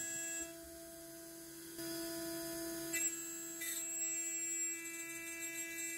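Air-cooled automatic-toolchanger milling spindle running with a steady hum while a 6-flute solid carbide hard-milling end mill takes slow, small cuts into a hardened ER32 collet chuck. The hum drops about half a second in and comes back a little louder just before two seconds, with a short blip near three seconds.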